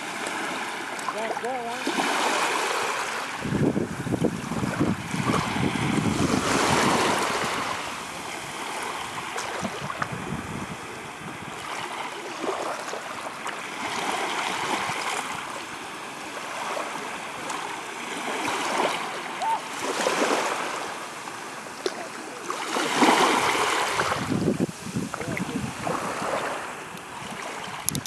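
Small, soft waves lapping and washing up over sand at the water's edge, the wash swelling and fading every few seconds.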